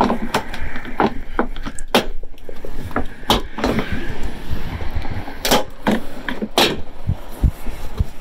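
Plastic fender flare on a Toyota Tacoma being pulled off the body by hand, with a string of sharp clicks, snaps and creaks as its push-in retaining clips let go.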